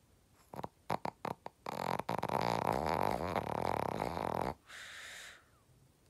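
Shih tzu snoring in its sleep: a few short snorts, then a long, loud fluttering snore lasting about three seconds, followed by a softer breathy exhale.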